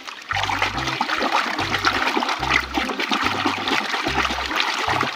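Water splashing and running continuously, full of small splashes, as a toy is washed in water.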